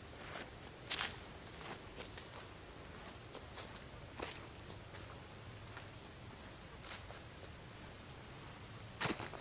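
Steady, high-pitched insect chorus in the woods, with a few scattered footsteps: one about a second in, a couple around four seconds, and one near the end.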